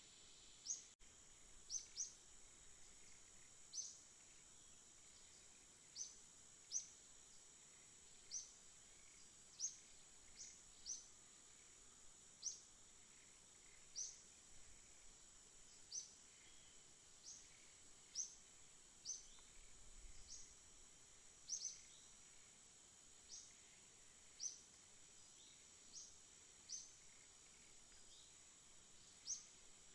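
A bird repeating a short, sharp, high chirp about once a second, now and then two in quick succession, faint over a steady high-pitched drone.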